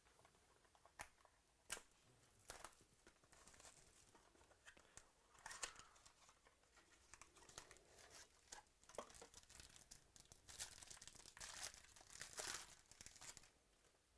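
A trading-card pack's wrapper being torn open and crinkled, with cards handled and shuffled in between. There are faint scattered clicks and rustles, then longer bursts of tearing and crinkling in the second half, the loudest near the end.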